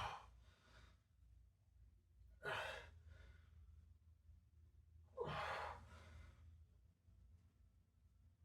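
A man breathing out hard three times, about two and a half seconds apart, with the effort of repetitions in a weight-training set.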